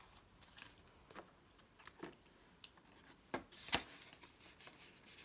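Faint rustling and light handling of banknotes and the clear plastic pockets of a cash-envelope ring binder, with scattered soft taps and a couple of sharper clicks about two thirds of the way in.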